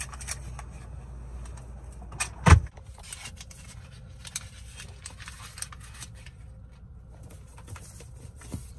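A single loud thump about two and a half seconds in, then soft rustling and light clicks of a gloved hand rubbing around a car's interior door handle and trim, over a low steady rumble.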